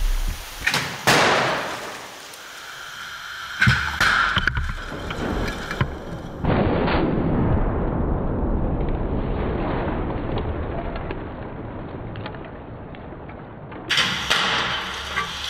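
Volvo crash-test car impacts: sharp bangs about a second in and near four seconds, then a loud crash at about six and a half seconds that fades slowly over several seconds, and more bangs near the end.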